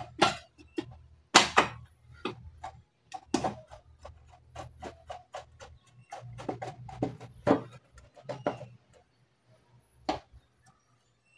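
Irregular metallic clicks and knocks as a nut is fitted and tightened by hand under a gas stove's burner, with parts of the stove's sheet-metal frame knocking against each other.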